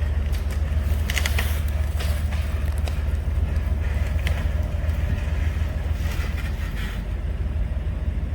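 Off-road vehicle engine running steadily at low revs, a strong, even low note throughout, with scattered short clicks and crackles over it.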